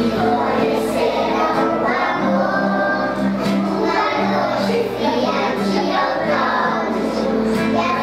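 A group of young children singing a song together, accompanied by an acoustic guitar.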